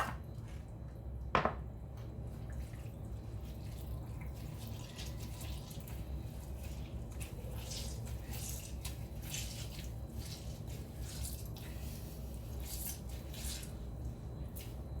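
Water dripping and trickling from grated potatoes being squeezed by hand, pressed out to dry them for crispier hash browns. A single knock sounds about a second and a half in.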